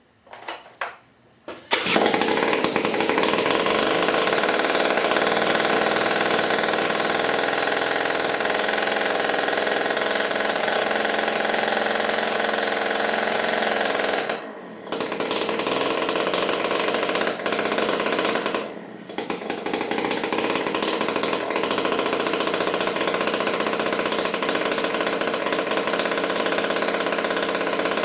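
Honda Spree 50cc two-stroke engine, running without its muffler, catches about two seconds in after a couple of short attempts and then idles loud and steady. Twice, around the middle, it falters nearly to a stall and picks back up: the first start of a freshly transplanted engine, its carburetor still untuned.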